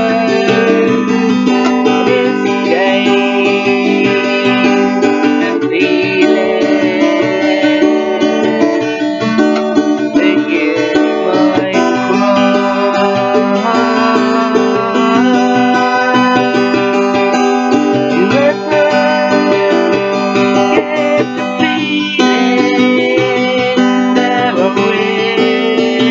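A woman singing while strumming a steady accompaniment on an acoustic guitar.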